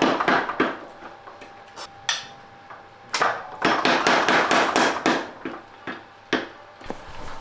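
Mechanical power hammer striking a red-hot knife blank on its anvil. A few blows come at the start, then a quick run of about six blows a second in the middle, then single blows spaced out toward the end.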